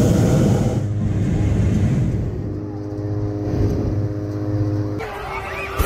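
Hot air balloon's propane burner firing with a loud roar that cuts off about a second in, leaving a steady low drone; the sound changes abruptly near the end.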